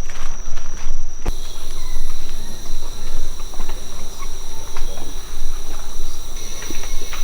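Rainforest insects droning at steady high pitches, with a second, higher drone joining about a second in, over uneven low rumbling of walking and handling noise.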